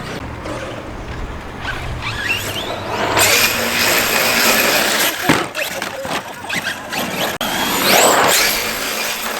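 Large electric RC basher truck's brushless motor whining as it is throttled, the whine rising in pitch at about three seconds in and again near eight seconds, over a rough noisy rush that fits tyres tearing across dirt.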